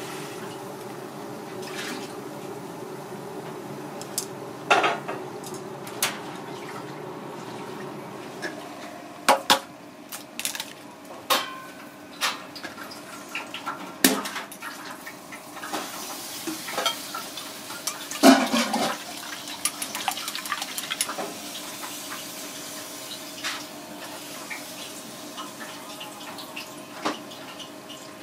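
Broth bubbling and hissing in a clay hotpot of loach and burdock over a gas flame, louder for the first few seconds and then easing. Sharp clinks and knocks of chopsticks and a steel bowl against the pot and stove come at irregular intervals.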